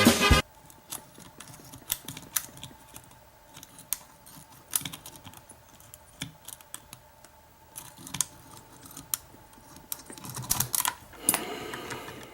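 Lock pick and tension wrench scraping and clicking inside a Schlage cutaway pin tumbler lock: scattered light metallic ticks, with a louder burst of rattling near the end. Music cuts off right at the start.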